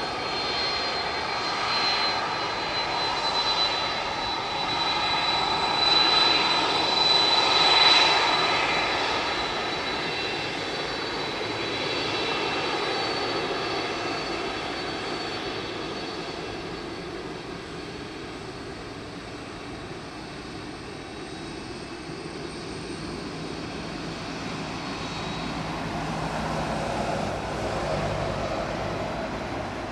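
Jet engines of a Boeing 767-300ER running on the ground after landing, with a high whine over a broad rush. The sound swells about six to eight seconds in, then fades, with a smaller rise near the end.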